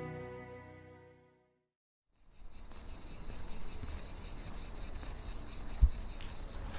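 Soft sad music fading out, a short gap of silence, then steady insect chirring that pulses rapidly. A single low thump comes near the end.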